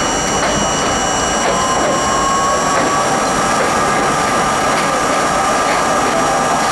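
R32 subway train running, with a steady rumble and clatter and a thin whine that rises in pitch about a second and a half in and then holds steady as the train picks up speed.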